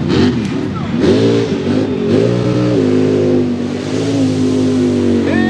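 Lifted old Ford pickup mud truck's engine revving hard as it ploughs through a mud pit. The revs swing up and down, climb sharply about a second in, and are then held steady at high revs.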